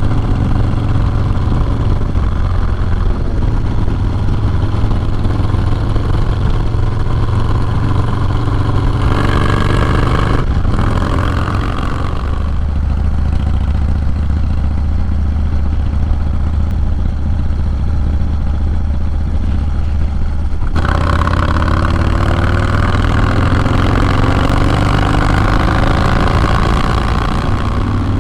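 Harley-Davidson Low Rider S 110 cubic inch V-twin running on the road through a Sawicki Speed 2-into-1 exhaust. It rises in pitch under throttle, eases off suddenly about ten seconds in, runs steadily, then opens up again about twenty seconds in and climbs.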